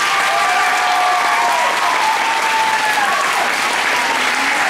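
Crowd clapping and cheering, with children's high, drawn-out screams held over it for a second or more at a time.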